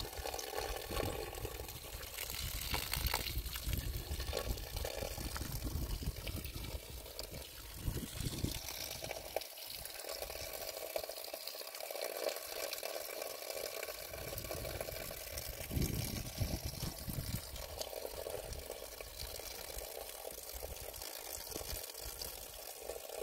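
Water pouring and trickling steadily from a spring pipe and hose, with uneven low rumbling that comes and goes underneath.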